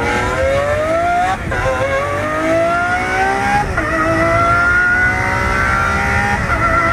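Lamborghini Aventador's V12 accelerating hard, heard from inside the cabin: the engine note climbs steadily in each gear and drops briefly at three upshifts, about a second and a half in, near the middle and near the end.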